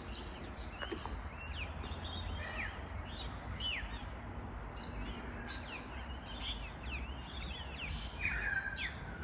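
Several birds chirping and calling at once, many short, quick falling notes overlapping, over a steady low rumble of outdoor background noise.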